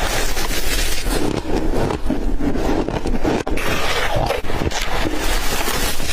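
Ice being bitten and chewed, a continuous loud crackling crunch with many small sharp cracks.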